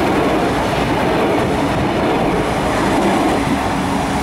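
A Trenitalia Minuetto diesel multiple unit passing close by, loud and steady: its wheels running on the rails over the noise of its diesel engines.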